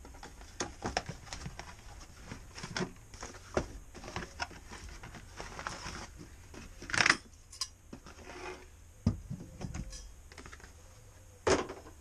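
Shimano Deore 12-speed cassette being unpacked by hand: scattered clicks and light metallic rattles of the sprockets and plastic carrier, mixed with cardboard and paper packaging handled. Two louder rustles stand out, about seven seconds in and near the end.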